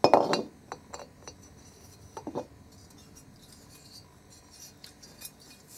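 Morini 350 alloy cylinder head and inlet valve handled on a workbench: a loud knock right at the start, a few light metal clicks, then a second, softer knock about two seconds in.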